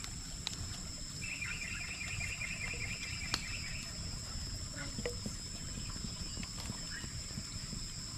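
Insects droning steadily at a high pitch, with a rapid chirping trill for about three seconds starting a second in, and a few faint clicks.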